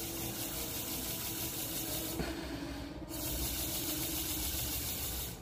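Breath blown hard through a drinking-straw rotor, a steady hiss of air escaping from the bent straw ends as the rotor spins. It comes as two long blows with a short break about three seconds in.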